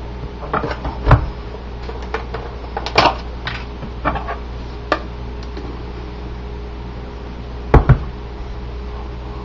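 Scattered light knocks and clatters of items being handled on a kitchen counter, with two louder knocks close together near the end, over a steady low hum.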